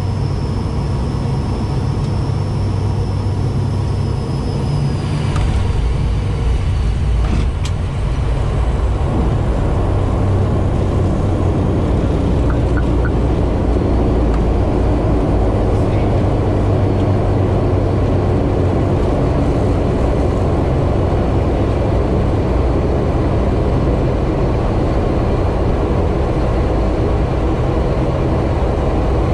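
The ATR 72-600's PW127M turboprop engines and propellers, heard from the cockpit during the landing rollout: a steady drone mixed with runway rumble. The drone grows louder about five seconds in, and a single click comes a couple of seconds later.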